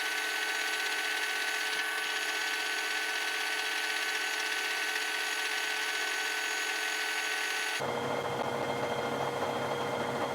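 Milling machine running a facing cut on the underside of a motorcycle fork yoke: a steady machining whine with several high tones. About eight seconds in the sound changes abruptly to a lower hum with one steady tone.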